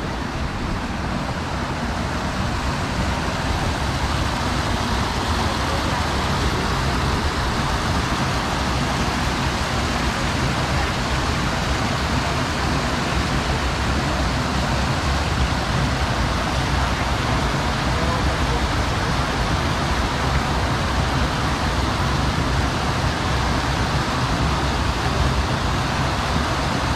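Water pouring over a stepped stone cascade into shallow pools: a steady rushing splash that grows a little louder in the first few seconds.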